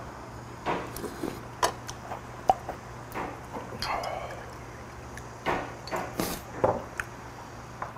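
Soft eating sounds from a mouthful of stew, then soju poured from a glass bottle into a small shot glass about four seconds in, with scattered sharp clicks and clinks of glass and tableware.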